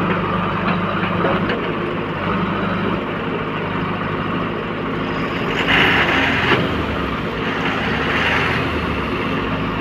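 Truck engine running steadily, with two short stretches of hiss a little past the middle.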